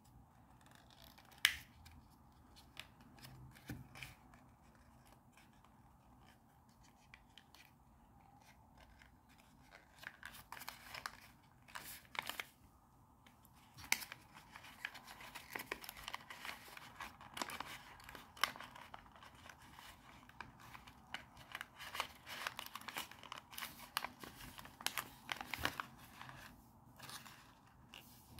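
Sheets of origami paper being folded and handled: crinkling, creasing and little crackles and taps of stiff paper, with one sharp snap about a second and a half in and busier, steadier crinkling from about ten seconds in.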